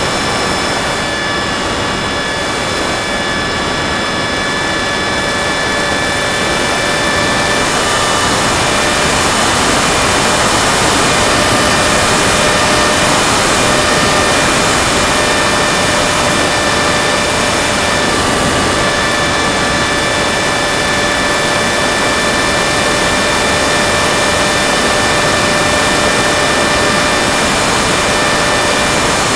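Motor and propeller of an FPV model aircraft, heard through its onboard camera: a steady whine of several tones under a rush of wind noise. The rush grows louder about seven seconds in, and the whine shifts slightly in pitch a few times.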